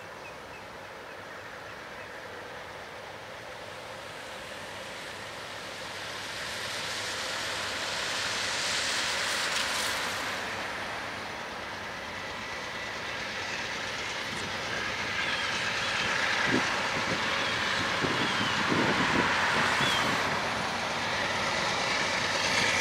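Amtrak GE P42DC diesel locomotive hauling a passenger train, its engine and wheels on the rails growing steadily louder as it approaches.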